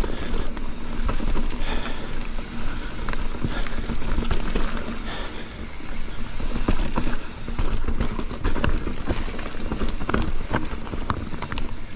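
A mountain bike ridden over rough trail: tyres rolling on dirt and rock, and the bike rattling with many small knocks, over a steady low rumble of wind on the microphone.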